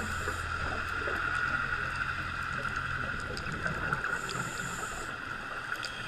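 Steady underwater drone heard through a GoPro's waterproof housing: a constant hum with faint scattered clicks, and a short hiss twice.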